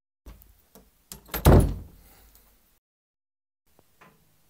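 A few light knocks, then one loud bang about a second and a half in that dies away over about a second, with a faint knock near the end.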